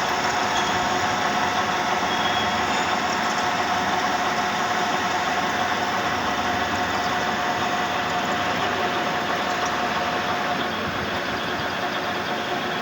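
Metal lathe running steadily, with a constant whine over its mechanical noise.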